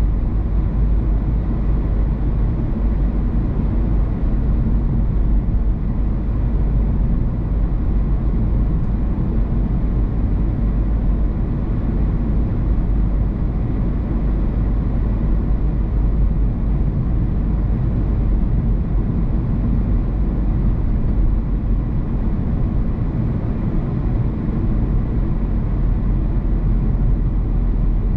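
Car driving along a road: steady low rumble of tyre and engine noise heard from the moving car, with no change in speed or events.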